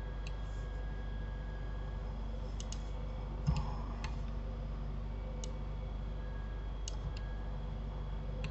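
Scattered computer mouse clicks, about ten spread unevenly over several seconds, over a steady low hum. A duller knock about three and a half seconds in is the loudest sound.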